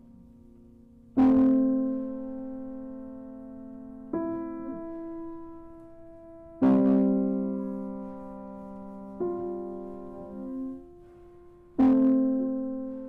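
Grand piano played slowly: five sustained chords, one every two and a half seconds or so, each struck and left to ring and fade. The first, third and fifth chords are struck hardest.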